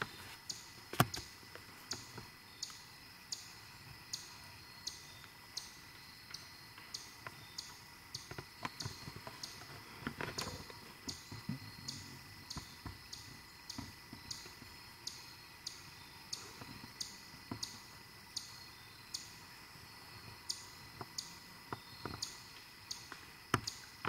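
Two quarters being tapped together as a squirrel call: a steady series of sharp metallic clicks, about two a second.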